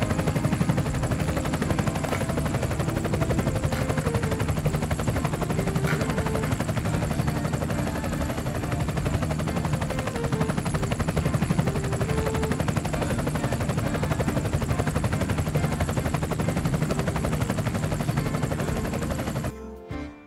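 Helicopter rotor sound, a steady rapid chopping for the toy helicopter being flown by hand; it cuts off suddenly near the end.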